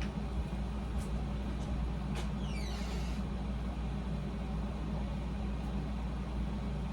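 Room air conditioner running with a steady low hum and hiss. A brief high squeak comes about two and a half seconds in.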